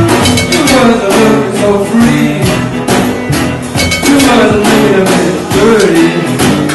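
Live music: an acoustic guitar strummed, with a voice singing over it.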